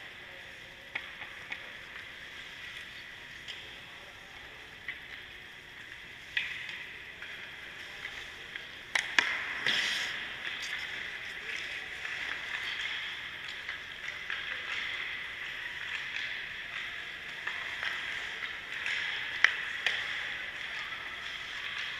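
Hockey skate blades and goalie pads scraping and hissing on ice, broken by sharp clacks of puck and sticks, the loudest about nine seconds in and near the end.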